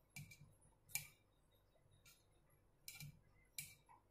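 A knife blade scraping and tapping on a marble rolling board as cut layers of ghee-coated dough are lifted and folded together. There are four short, faint strokes, the second the sharpest.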